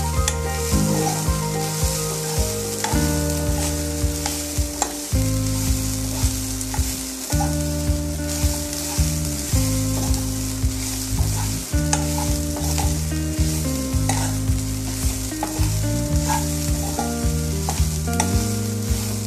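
Grated coconut frying in oil in a nonstick kadai with a light sizzle, while a spatula stirs and scrapes it with frequent short scraping strokes. A low hum that shifts in pitch every second or two runs underneath.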